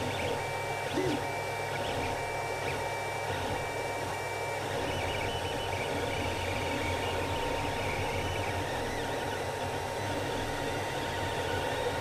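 Creality CR-10 3D printer running a print: its stepper motors sing in short, level, beep-like tones that change pitch as the print head moves, over the steady whir of its cooling fans.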